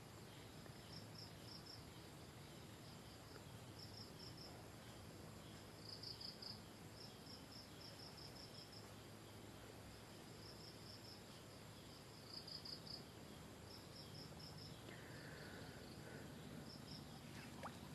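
Near silence with faint, high-pitched insect chirping: short trills of a few quick pulses, repeating every second or so.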